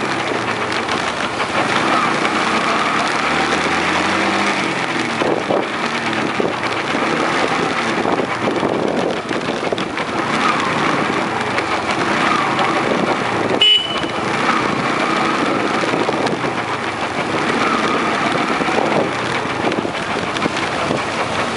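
Yamaha Enticer 125 single-cylinder motorcycle engine running under way, with wind and road noise. The engine note wavers as the throttle changes, and a sharp click comes about halfway through.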